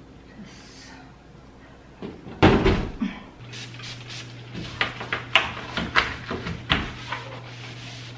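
A cupboard door shutting with a thud about two and a half seconds in, followed by a run of light knocks and clicks of things being handled. A low steady hum starts just after the thud.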